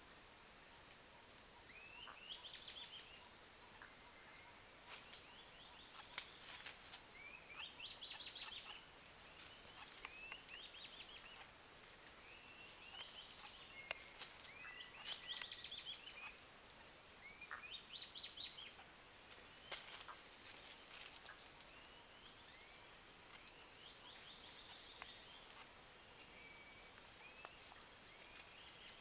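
Faint rainforest ambience. A bird repeats short, rising chirping phrases every two to three seconds over a steady high thin tone, with a few sharp clicks.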